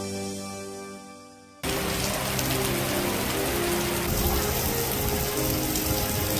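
Organ music fading out, then about one and a half seconds in a sudden switch to heavy rain pouring and splashing onto wet pavement, with music still playing underneath.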